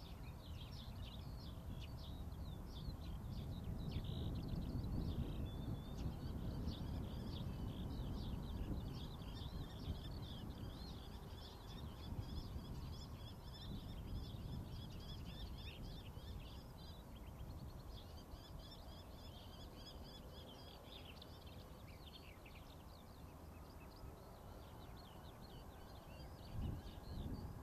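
Songbirds chirping and singing continuously over a low rumble. A faint tone rises in pitch over the last several seconds as the approaching Boeing 737-800's jet engines draw nearer.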